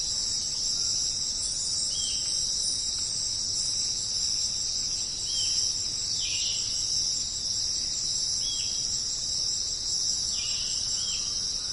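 Dense, steady chorus of insects shrilling, with a few short chirps standing out from it now and then.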